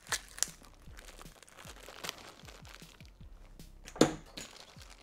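Crinkly plastic packaging handled by gloved hands as the red filler tube is taken out of the acid-pack kit: scattered crackles and clicks, with one louder sharp crackle about four seconds in.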